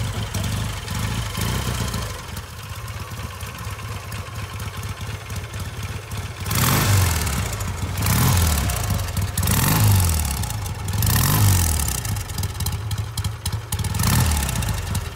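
1959 BSA A10 Golden Flash's 646cc parallel-twin engine idling, then revved about five times from around halfway through, each rev rising and falling back.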